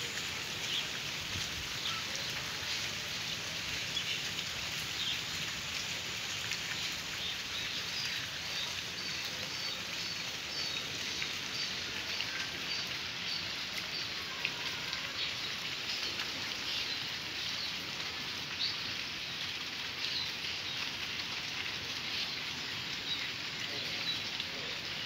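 Steady high hiss, with small birds chirping through it, including a run of quick repeated chirps about a third of the way in.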